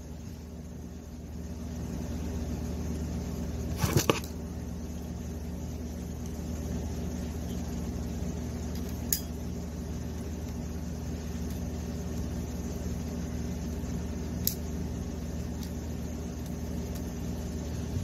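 Steady low hum with a few sharp clicks from a crimping tool's stripping blade scoring and turning on the jacket of a Cat 6 UTP network cable: a quick cluster of clicks about four seconds in, then single clicks later.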